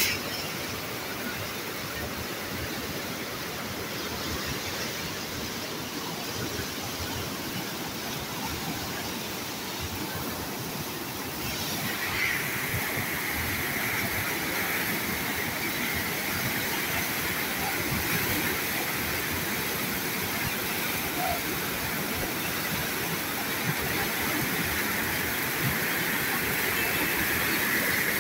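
River water rushing and churning through a barrage's sluice gates and down its concrete spillway, a steady white-water rush. It gets slightly louder and brighter about twelve seconds in.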